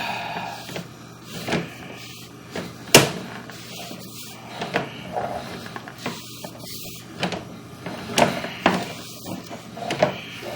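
Irregular knocks, clunks and scrapes, roughly one every second or two with a sharp knock about three seconds in, from handling a sewer inspection camera's push cable and reel during a line inspection.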